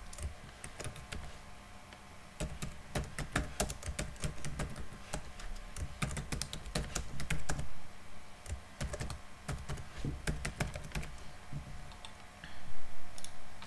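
Typing on a computer keyboard: irregular runs of key clicks with short pauses. A louder low bump comes near the end.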